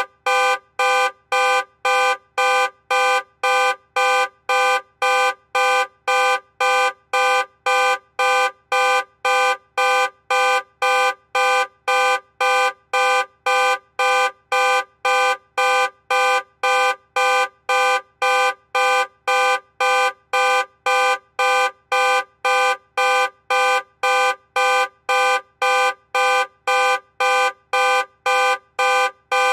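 Car alarm sounding the car's horn in a steady, even rhythm of about two loud blasts a second, each blast a chord of several tones, without a break.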